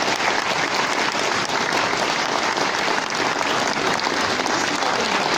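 Concert audience applauding steadily after the band's number ends.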